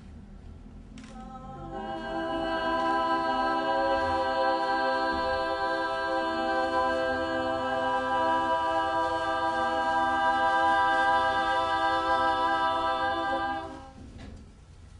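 A group of women's voices singing unaccompanied, holding one long steady note together; it comes in about a second and a half in and stops about a second before the end.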